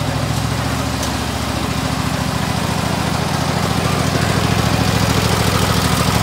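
Zero-turn riding mower's engine idling with a fast, even pulse, slowly getting louder.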